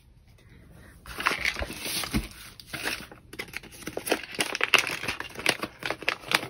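A small packaging pouch, a diamond-painting tool kit, being torn open and handled: crinkling and tearing that starts about a second in, breaks off briefly, then goes on as a run of sharp crinkles and clicks.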